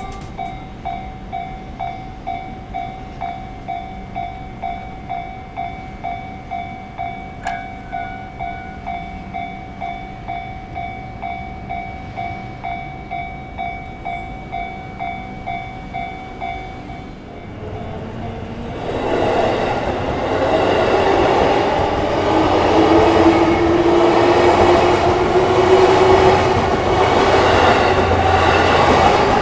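Japanese level-crossing warning bell ringing in a steady ding-ding rhythm, about two rings a second, until about 17 seconds in. A train then runs loudly through the crossing, with a whine that rises in pitch as it passes.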